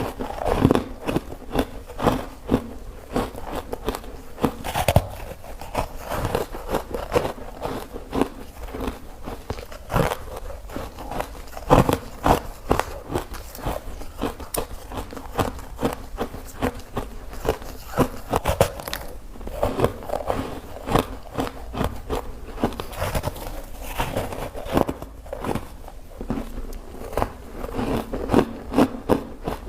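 Close-up bites and crunching of ice, with sharp cracks coming irregularly, several a second, throughout.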